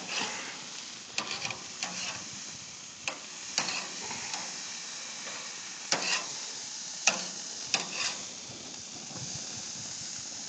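Hamburger patties sizzling steadily on a grill, with a scattering of sharp metal clicks and scrapes from a utensil against the grate.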